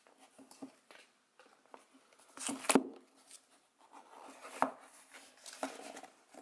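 Cardboard card storage box (BCW 300-count) handled and opened by hand: scattered light taps and cardboard rubbing, with the loudest knocks about two and a half seconds in and again around four and a half seconds in.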